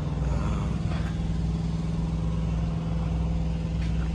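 An engine running steadily at a constant idle, a low, unchanging drone.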